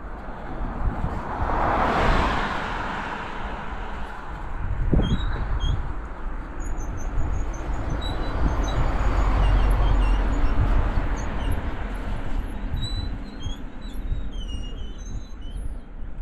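Wind buffeting the microphone of an action camera on a bicycle coasting downhill on a paved road, a loud low rumble with road and tyre noise that swells about two seconds in. Faint, short high chirps come and go from about five seconds in.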